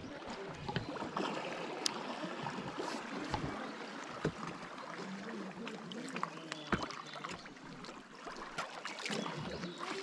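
Paddle dipping and pulling through the water beside an inflatable boat, with water splashing, dripping and lapping against the hull in small uneven spatters.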